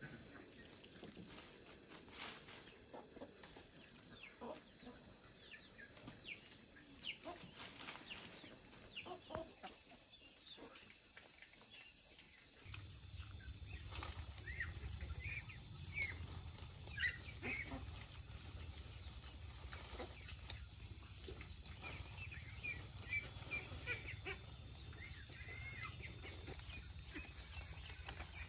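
Rural outdoor ambience: scattered short bird chirps over a steady high-pitched drone. A low rumble sets in about halfway through.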